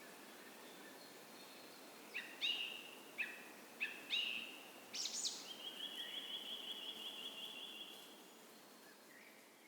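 A songbird sings about two seconds in: a handful of loud, quick sweeping notes, then a fast, even trill lasting a couple of seconds. Underneath runs the steady hush of a gentle creek.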